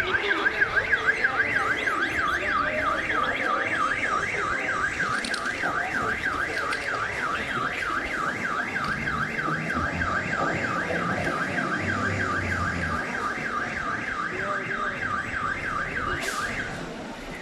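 An electronic alarm siren wails, its tone sweeping quickly up and down about four times a second, and cuts off abruptly near the end.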